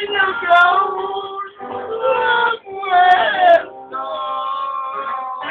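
A man singing through a microphone in sung phrases, holding a long steady note near the end.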